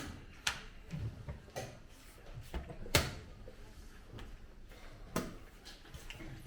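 A handful of separate sharp clicks and knocks, the loudest about three seconds in, over a quiet room background.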